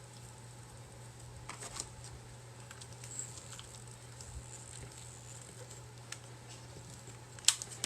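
Faint rustling and light scratchy taps of rope being wound around a clay pot and handled, over a steady low hum, with a sharp click near the end.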